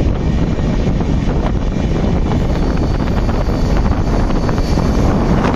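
Wind buffeting the microphone held out of a moving passenger train's open door, over the steady rumble of wheels on track as another passenger train runs past on the adjacent line.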